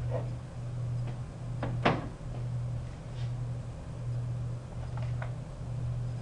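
A steady low hum that cuts out briefly about once a second. It is broken by a sharp knock about two seconds in, the loudest sound here, and a few fainter clicks later on.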